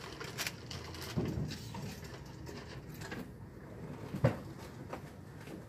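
Scattered clicks and knocks of items being picked up and set down on a counter, with one sharper knock about four seconds in.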